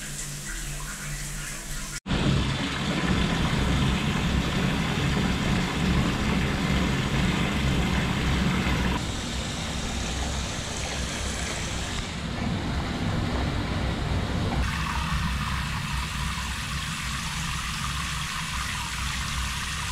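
Hand-held shower head spraying water, first onto a tiled shower floor, then into a bathtub full of bubble-bath foam: a steady rush of water whose tone changes abruptly several times. The flow is only middling.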